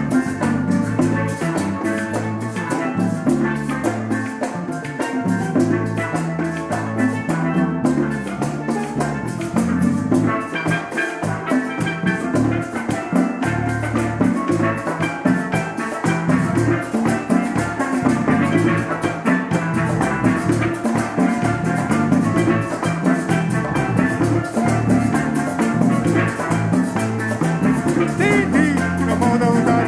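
Live band playing upbeat instrumental worship music without singing: drums keeping a steady, quick beat on the cymbals, a moving bass line and melodic instruments, with Latin-style percussion.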